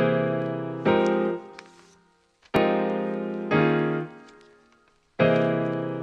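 Background music: keyboard chords struck and left to fade, coming in pairs with short pauses between them.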